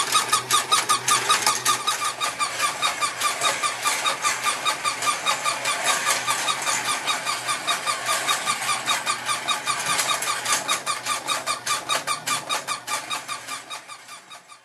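Battery-operated Dalmatian staircase-and-slide toy running: a low motor hum under the clacking of the moving plastic stairs, about five clicks a second, as the toy dogs are carried up. The sound fades out near the end.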